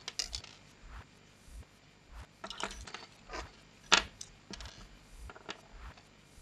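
Small plastic headphone parts and a thin wire being handled on a wooden tabletop: scattered light clicks and rustles, with one sharp click about four seconds in.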